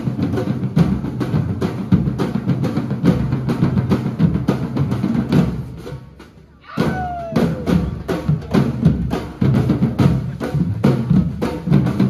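Brazilian samba drum group playing: a driving pattern of deep surdo bass drums with snare and other hand-held drums. The drumming drops away briefly a little past halfway, then comes back in at full strength.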